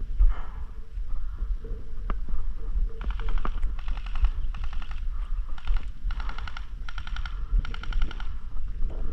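Airsoft guns firing on full auto: about seven short bursts of rapid, evenly spaced clacking, starting about three seconds in. Low wind rumble on the microphone runs under the bursts.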